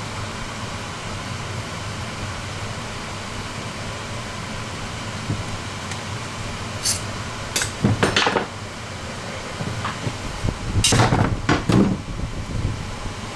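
Metal parts of a box fan motor clinking and clanking as its end cap is taken off: a few sharp clicks about halfway through, then a louder run of knocks near the end, over a steady hum.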